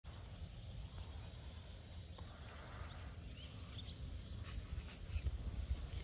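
Long-handled garden cultivator's metal tines scratching and digging into soil around an iris clump, with a scrape about four and a half seconds in, over a steady low rumble. A bird gives a few short high chirps about a second and a half in.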